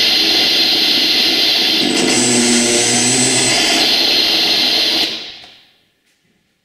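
Radio cassette player giving out a loud, harsh static-like noise with a low hum that comes and goes; it fades out about five seconds in, after a button on top is pressed, followed by a faint click.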